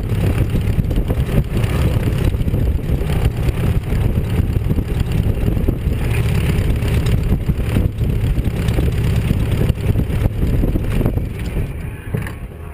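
Fournier light aircraft's piston engine running with its propeller turning, heard from the cockpit as a loud, steady drone. The sound drops off sharply near the end.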